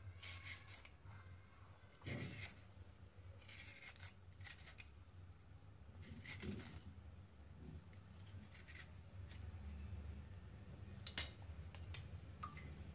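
Turnip being peeled by hand: faint, irregular scrapes and cuts as a blade takes off the skin, a stroke every second or two, over a steady low hum.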